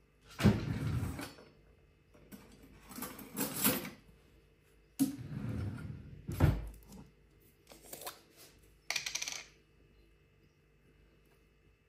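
Household objects being handled: several separate bouts of scraping and clattering about a second long, some opening with a sharp knock. The loudest knocks come about half a second and six and a half seconds in.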